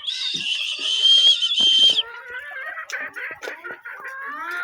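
A loud, shrill high-pitched note held for about two seconds, then domestic hens clucking and calling more softly, with a rising call near the end.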